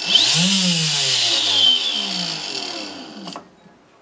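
Electrolux Ergorapido Lithium vacuum's small 18 V fan motor spinning up with a loud airy whine, then winding down over about three seconds, falling in pitch, with a knock near the end as it stops. The fan sits out of balance and the bearings seem a bit rough.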